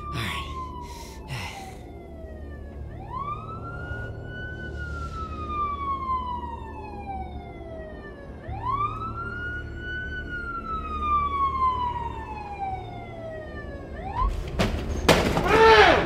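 Police siren wailing: the pitch rises quickly, then falls slowly, twice over, with a third rise starting near the end. A few sharp knocks come in the first second and a loud sudden hit just before the end.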